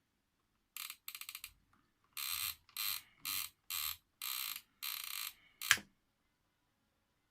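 Old Sony flip-clock alarm radio sounding its alarm: bursts of hiss from its speaker about twice a second, cut off by a sharp click of a switch.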